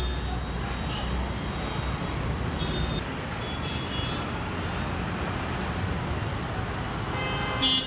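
Steady urban road traffic noise, a continuous rumble of passing vehicles. A short, louder pitched sound stands out just before the end.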